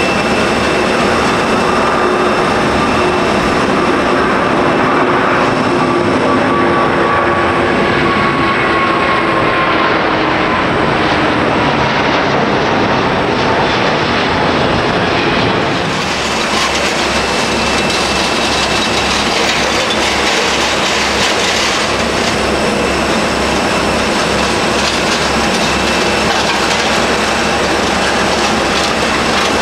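Jet airliner engines at close range, a loud continuous rush with a faint whine that slowly falls in pitch as the aircraft passes. About halfway through, the sound changes abruptly to a brighter, hissier jet noise with a low pulsing throb.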